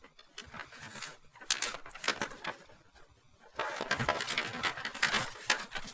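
Paper pages of a printed instruction booklet being handled and turned: short crisp rustles and flaps of paper, with a busier run of page-flipping about three and a half seconds in.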